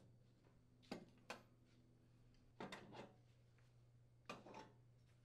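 A few faint, brief clicks of metal burner caps and bases being lifted off a gas cooktop, coming a second or so apart, some in quick pairs.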